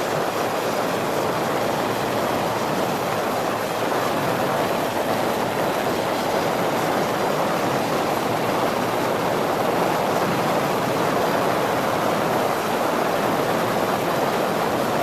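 A 7 m rigid inflatable boat running at speed, a steady, even rushing noise of engine and hull on the water with no changes.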